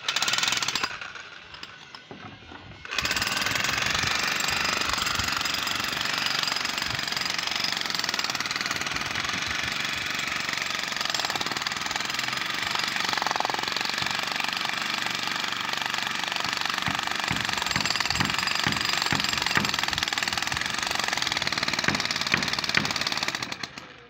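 Hand-held demolition hammer chiselling concrete out of a column around its steel reinforcement bars. It hammers briefly at the start, pauses about two seconds in, then runs continuously until it stops just before the end.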